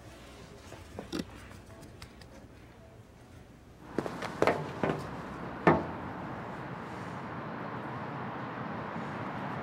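Faint room tone with a few small clicks, then about four seconds in a steady outdoor street hiss sets in, with four sharp knocks or taps over the next two seconds.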